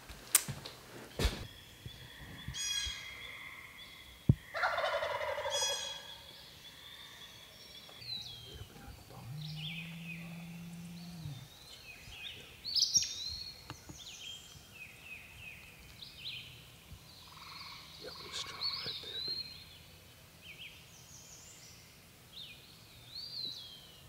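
Wild turkey tom gobbling, one rattling call about four to six seconds in, with songbirds chirping through the rest. A couple of sharp clicks near the start, and a low steady hum for about two seconds midway.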